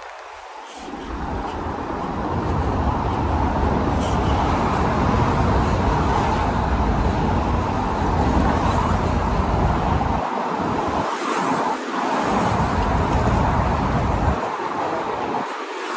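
Road traffic on a city street: cars driving past close by, a steady rush of engine and tyre noise with a deep rumble that eases off briefly twice in the second half.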